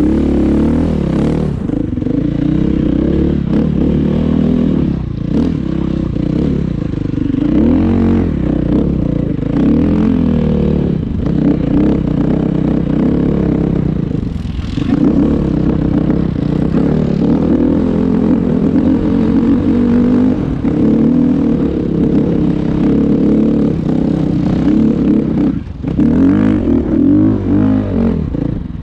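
Off-road vehicle engine running throughout, its revs rising and falling repeatedly as it is driven.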